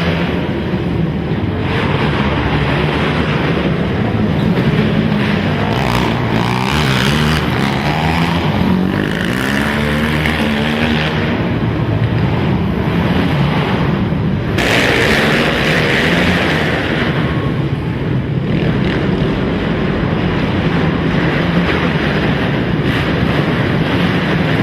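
Racing quad (ATV) engines running hard, several at once, their pitch rising and falling as the riders open and close the throttle.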